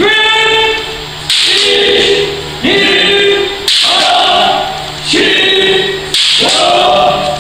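Group of kendo practitioners shouting kiai in unison with each practice swing of their shinai: six drawn-out shouts, one about every second and a quarter, each starting sharply.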